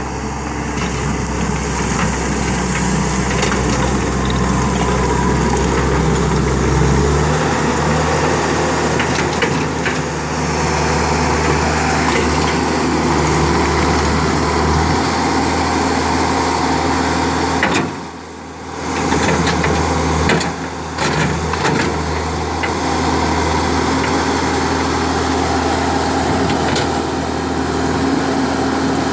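Diesel engine of a New Holland C190 tracked skid steer loader running while the machine is operated; about seven seconds in the engine speed rises and holds higher, with two brief dips in level later on.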